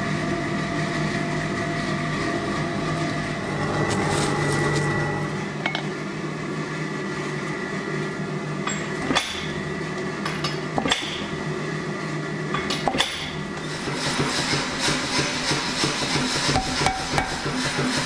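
Massey power hammer running with a steady motor and compressor hum. A few single blows land in the middle, then rapid repeated blows start a few seconds from the end.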